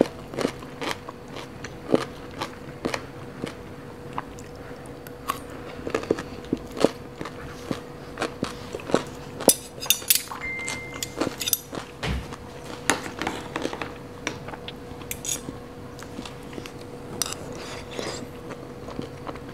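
Close-up mukbang eating sounds: crunchy green papaya salad being bitten and chewed, with a fork and spoon clicking and scraping against the food trays as she scoops. The sharp irregular clicks come every fraction of a second, over a faint steady hum.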